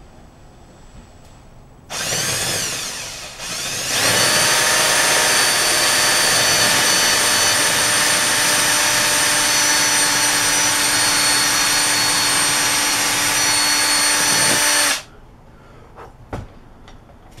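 Electric drill boring a hole into a prop mace's ball: a short rising whine about two seconds in, a brief dip, then about eleven seconds of steady running at one pitch before it cuts off.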